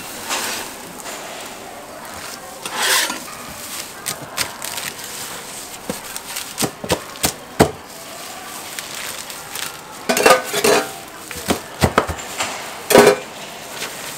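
Metal spatulas scraping and knocking on a jianbing griddle, then a knife cutting the crisp folded pancake on a steel tray: a run of sharp clacks, scrapes and crunches, the loudest knocks near the end.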